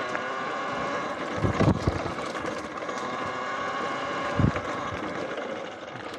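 Electric bike's motor whining steadily while riding, easing off near the end. Low thumps come in a cluster about one and a half seconds in and once more at about four and a half seconds.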